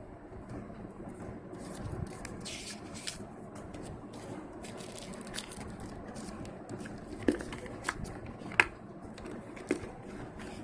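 Handling sounds of a smartphone and its packaging: light rustling, then a few sharp clicks and taps, the loudest about two-thirds of the way through, over a steady low hum.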